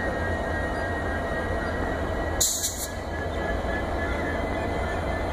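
WDG4 diesel-electric locomotive's EMD two-stroke V16 engine running with a steady low rumble and a faint thin whine above it. A short hiss about two and a half seconds in.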